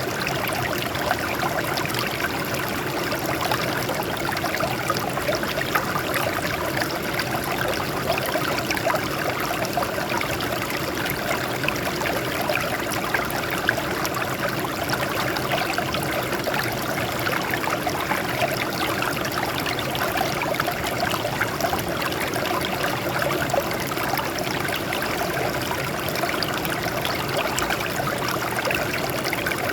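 Water flowing and trickling over rocks in a steady, continuous splashing stream.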